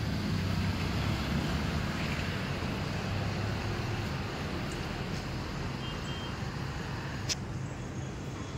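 Steady low rumble of road traffic and engines, with a single sharp click about seven seconds in.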